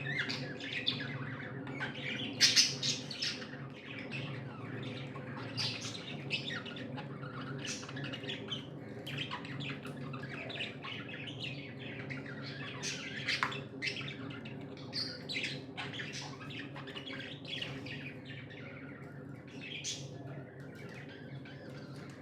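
A flock of budgerigars chirping and squawking continuously, many short calls overlapping, loudest about two and a half seconds in, over a steady low hum.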